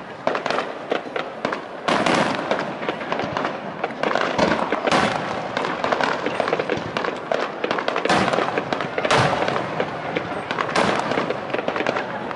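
Aerial fireworks shells bursting in quick succession: a continuous crackle of stars with several louder bangs, about 2, 5, 8, 9 and 11 seconds in.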